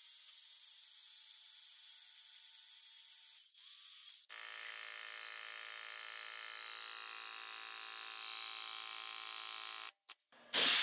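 Portable band saw running through a steel roll-cage tube, a steady hissing cut. About four seconds in it gives way to the steady whine of the powered tube bender's drive motor, which runs evenly until just before a brief loud noise at the very end.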